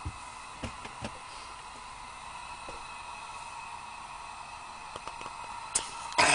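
Lantern burning with a steady hiss and a faint whine, with a few small clicks and knocks of handling; a louder rustle near the end.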